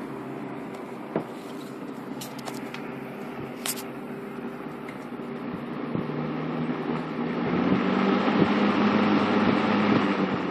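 Eskimo 12-inch box fan running, its motor humming under a rush of air. From about six seconds in the air noise grows louder, then eases off at the very end, with a few light clicks in the first few seconds.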